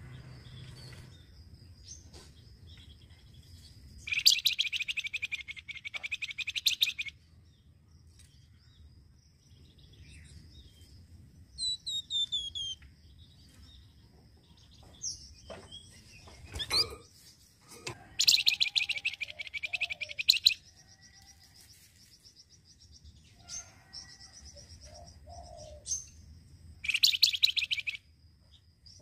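Caged flamboyan songbird calling in three loud bursts of a fast, dry rattling trill, each lasting two to three seconds, with fainter chirps and short falling whistled notes between them. A thin steady high tone runs behind.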